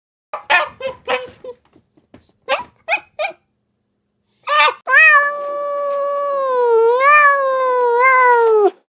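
Domestic animal calls: several short cries, then one long, wavering, drawn-out call that lasts about four seconds and cuts off near the end.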